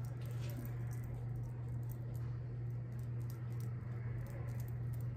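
A soft, fluffy makeup brush brushing and tapping cream makeup onto skin, heard as faint, irregular small ticks and swishes over a steady low hum.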